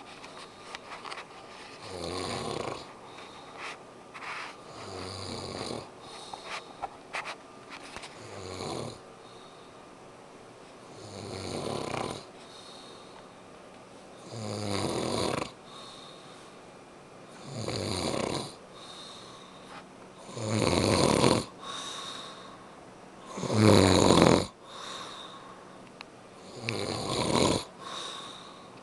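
A man snoring in his sleep, one snore about every three seconds with quiet breathing between. The snores grow louder in the second half.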